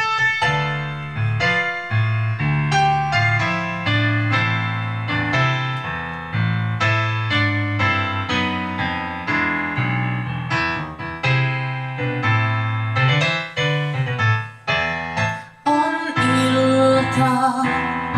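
Piano backing track playing a song's introduction over a low bass line. A woman starts singing over it, into a handheld microphone, near the end.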